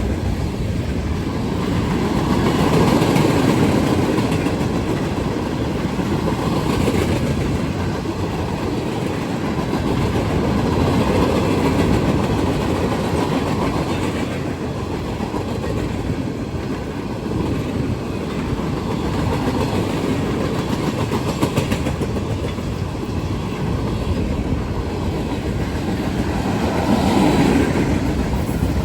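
Freight cars of a manifest train rolling past, steel wheels on the rails clicking and rattling, the sound swelling and easing as cars go by.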